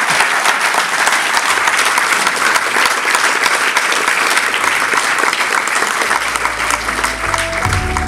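Audience applauding. Music with held notes comes in near the end.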